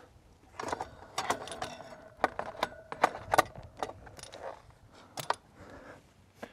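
Metallic clinks, knocks and light rattles as a KTM 790's front axle is drawn and the spoked front wheel is worked down out of the forks, with a short ringing metal tone near the start.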